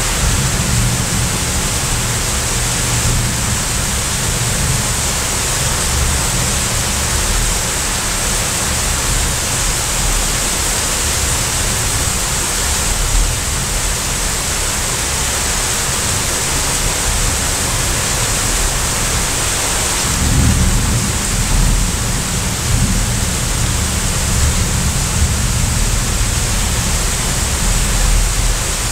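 Heavy rain pouring steadily with low rumbling thunder underneath, the thunder swelling about two-thirds of the way through.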